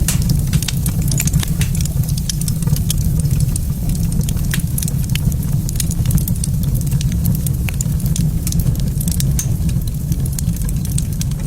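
Wood fire crackling in a fireplace: many sharp, irregular pops and snaps over a steady low rumble.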